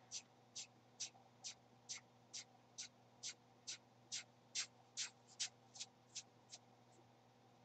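A Slinky being passed back and forth between the hands, its coils clacking together in faint, short clicks a little more than twice a second, stopping about a second before the end.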